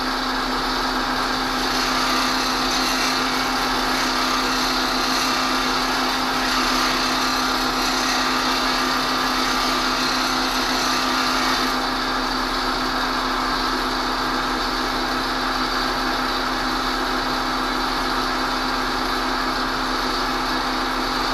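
Bench grinder motor running steadily while a steel plane iron is ground against the wheel, a hissing grind on top of the motor's hum. The grinding hiss strengthens about two seconds in and eases off about twelve seconds in, with the motor running on. The bevel is being ground down until the blackened flat spot on the edge is almost gone.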